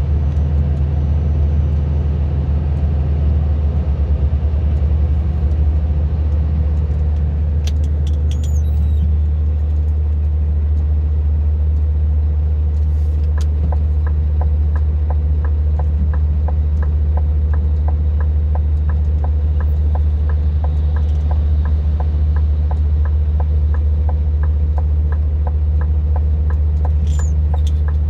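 Vehicle engine running in a steady low drone, heard from inside the cab while driving and slowing in traffic. From about halfway through, a turn-signal indicator ticks about twice a second.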